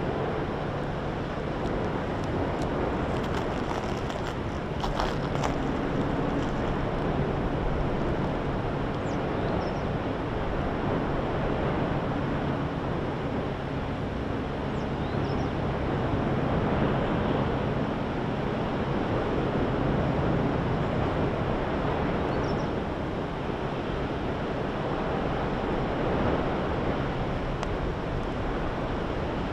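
Steady rushing roar of the Fissure 8 lava eruption, much like surf, mixed with wind on the microphone. A few faint clicks come about four seconds in.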